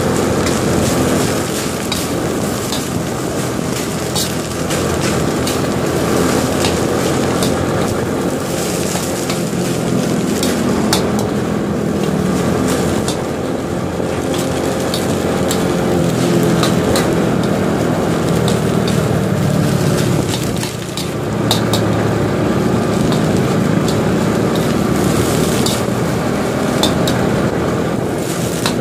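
Small motor scooter engine running steadily under way, with road and wind noise around it. The engine eases off briefly about twenty seconds in, then picks up again.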